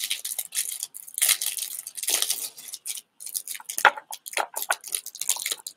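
Plastic wrapping crinkling and crackling in irregular bursts as gloved hands unwrap a sealed pack of trading cards.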